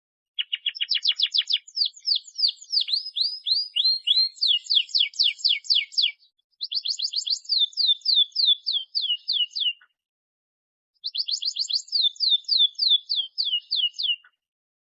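Domestic canary singing vigorously in three long trilled phrases of fast, repeated down-slurred notes, each phrase shifting to a new note type partway through, with short pauses about six and ten seconds in.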